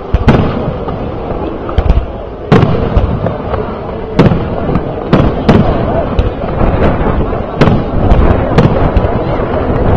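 Aerial firework shells bursting in a display: about a dozen sharp bangs at uneven intervals, a few close together, over a steady rumble between them.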